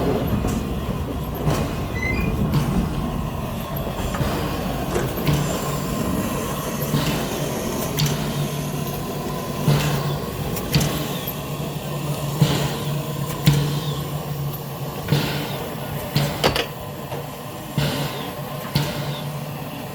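Train standing or easing along a station platform: a steady low hum with irregular knocks and clanks, which come more often in the second half.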